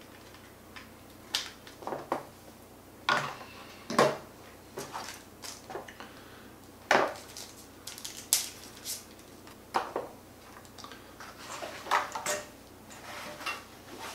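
Irregular clicks, taps and knocks of hard plastic drone parts being handled on a tabletop: the Mavic Mini's batteries, cable and charging hub being fitted together and moved.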